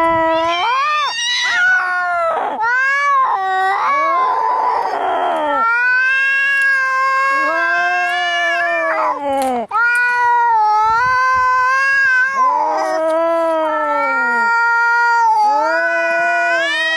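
Angry cats caterwauling, long drawn-out yowls that rise and fall in pitch, as in a cat fight, with a harsh noisy burst about four seconds in.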